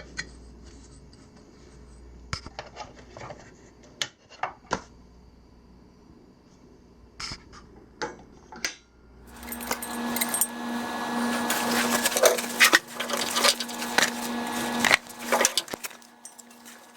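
Steel parts clinking and knocking as they are set in place, then about six seconds of a welding arc putting tack welds on a steel plate and square-tube post: a steady crackling hiss with a constant buzz that starts about nine seconds in and stops abruptly near the end.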